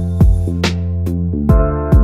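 Background music with a steady beat and sustained keyboard chords.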